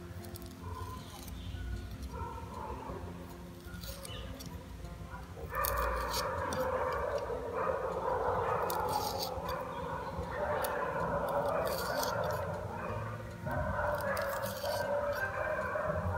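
Knife blade scraping and stripping the fibrous outer skin off a moringa drumstick pod in short, scratchy strokes. About five seconds in, a louder continuous background noise of unclear source comes in and stays.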